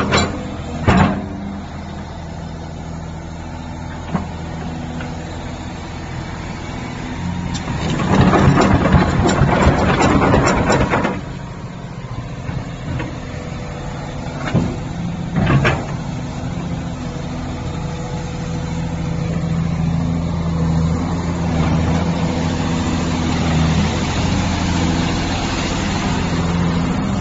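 Doosan DH300LC-7 crawler excavator's diesel engine running steadily while the machine works and travels on its steel tracks. A loud noisy stretch comes about eight seconds in and lasts about three seconds, and a few sharp clanks come near the start and around fifteen seconds in.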